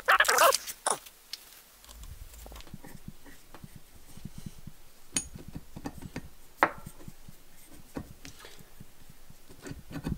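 Light clicks and scrapes of small steel parts worked by hand: an Allen wrench turning a grub screw and jam nut in the cast-iron body of a super spacer. The ticks are scattered, with a few sharper single clicks in the second half.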